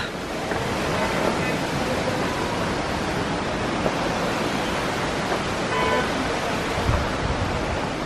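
Steady rushing of flowing water, an even hiss that holds at one level.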